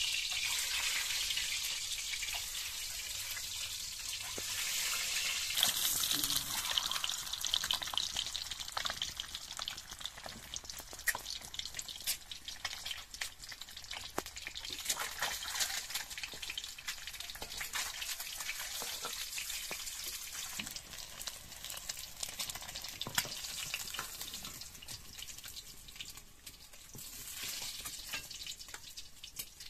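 Peeled boiled eggs frying in hot oil in a steel wok: a steady sizzle, strongest in the first few seconds, broken by frequent pops and crackles that thin out toward the end.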